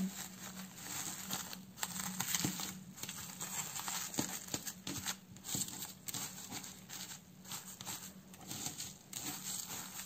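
Plastic cling film crinkling and rustling in irregular bursts as hands wrap and press it around a skein of dyed yarn.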